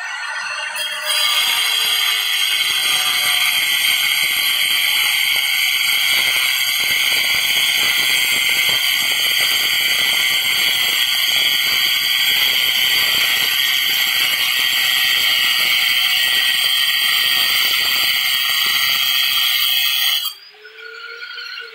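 Electric angle grinder with a cutting disc grinding along the grout joints between ceramic floor tiles: a loud, steady, high-pitched whine mixed with grinding noise. It starts about a second in and cuts off abruptly near the end, followed by a short falling pitch as the disc winds down.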